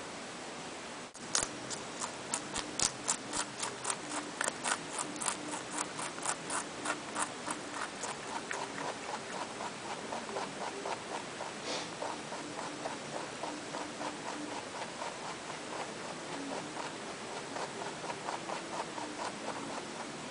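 Pet rabbit chewing vegetables: a fast, even run of crisp crunches, about four or five a second, loud for the first several seconds and then softer as the chewing goes on.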